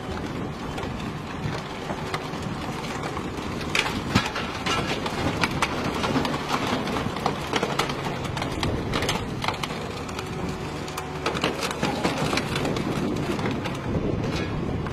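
Mobile car crusher's hydraulic press running with a steady drone as it flattens a stack of cars, with many sharp cracks and crunches of car bodies giving way from about four seconds in.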